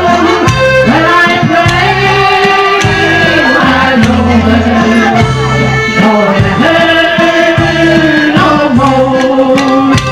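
Electronic keyboard playing a sing-along tune, with held bass notes under the melody and a voice singing along.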